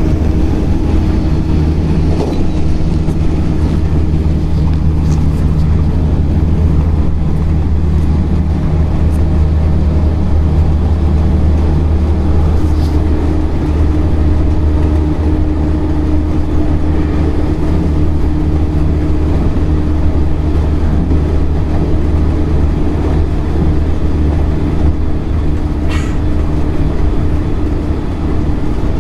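Running sound inside a JR Central 313 series electric train: a steady low rumble of wheels and running gear on the rails, with steady humming tones over it. A single sharp click sounds near the end.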